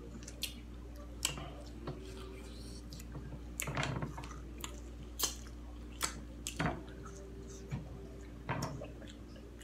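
Biting and chewing corn on the cob coated in crushed Takis, heard close up: about ten sharp crunches scattered among the chewing. A steady low hum runs underneath.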